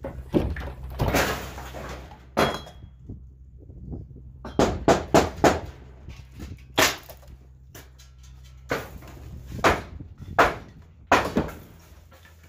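Rotten wooden roof boards being knocked and pried loose: a series of irregular sharp wooden knocks and cracks, with a short rattling stretch near the start and a quick cluster of knocks about halfway through.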